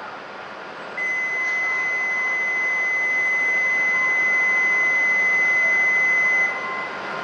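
Shinkansen platform departure buzzer sounding one steady, high electronic tone for about five and a half seconds, starting about a second in and cutting off near the end, signalling that the train is about to leave. Under it is the steady hum of the waiting train and the station.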